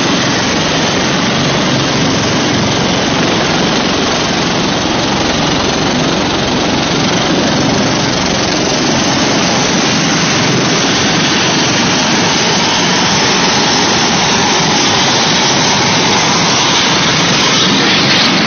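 Steady loud roar of an aircraft engine overhead, a wide rushing noise that holds level and swells slightly near the end.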